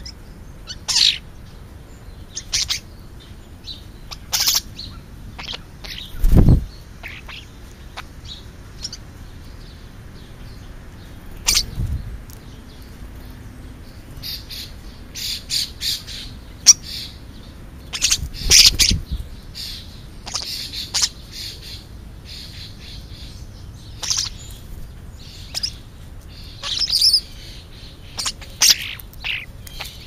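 Juvenile European starlings chirping and squawking at a feeding pile: many short, harsh calls scattered throughout, busier in the second half. A few dull thumps stand out among them.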